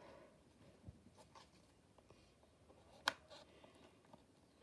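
Near silence, with a few faint clicks and scrapes of a plastic toy blister pack being handled and opened, and one sharper click about three seconds in.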